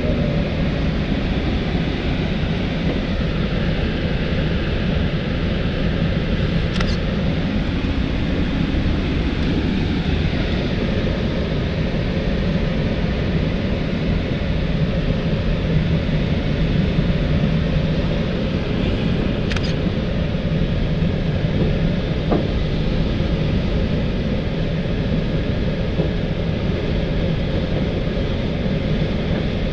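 Steady rush of airflow noise inside the cockpit of an L-23 Blaník glider in flight, unchanging throughout, with a couple of faint clicks.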